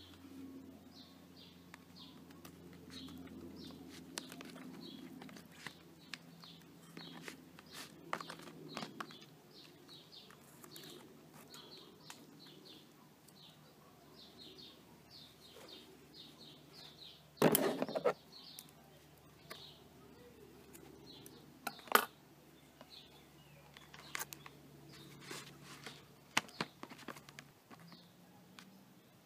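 Small birds chirping in short repeated notes, with faint clicks and rustles of hands working meat in a plastic tray. Two louder, sharp knocks come a little past the middle, a few seconds apart.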